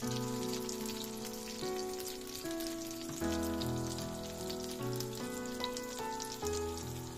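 Eggs and cheese in tomato rings sizzling in oil in a frying pan, a dense fine crackle, over background music of sustained chords that change every second or so.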